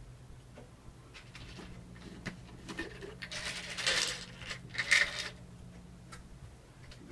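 Pills rattling in a plastic prescription bottle as it is handled, with small clicks and taps. There are two louder rattles, one about three to four seconds in and a shorter one about five seconds in.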